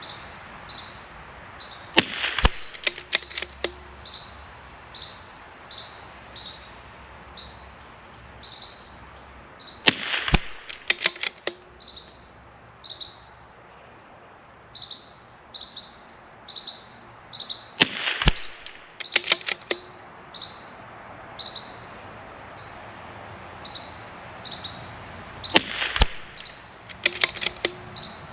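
Four shots from a .22LR bolt-action rifle firing subsonic SK Rifle Match ammunition, about eight seconds apart, each followed by a quick run of clicks as the bolt is worked. Crickets chirp steadily throughout.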